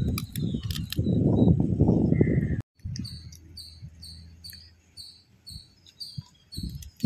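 Loud, close-up chewing and crunching of crab with rice, with a few sharp cracks. After an abrupt cut about two and a half seconds in, the sound turns quiet: an insect chirps a high, two-tone note about two or three times a second over a low hum.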